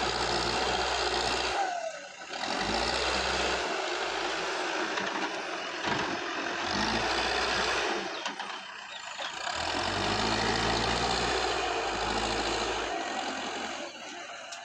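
Heavy diesel machinery engine running steadily, with brief drops in level about two seconds in and again just past the middle.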